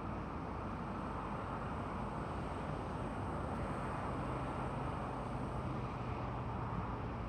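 Steady outdoor background noise: an even hiss with a faint low hum from about four seconds in. No siren is sounding.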